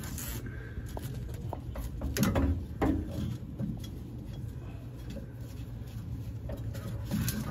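A few short knocks and clicks of hands handling parts under a pickup truck's chassis, over a steady low hum.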